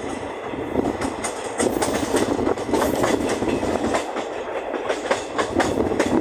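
Moving passenger train coach running over the rails: a steady rumble with irregular sharp clicks as the wheels pass over rail joints.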